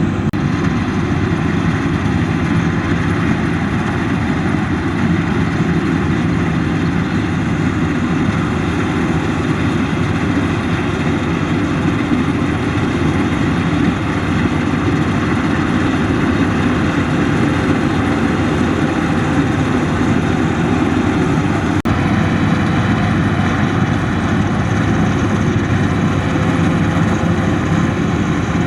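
Combine harvester running steadily, a constant heavy engine drone with a short dropout about three-quarters of the way through.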